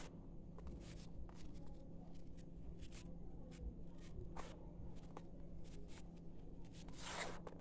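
Dry sifted sand cement crumbled and rubbed between fingers in a plastic basin: faint, scattered crunches and crackles, with a longer, louder rustle of grains near the end.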